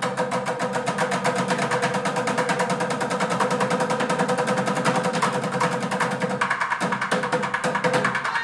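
Fast, dense bucket drumming: sticks striking plastic buckets, metal trash cans and cymbals in a quick, even rhythm, over a steady held note.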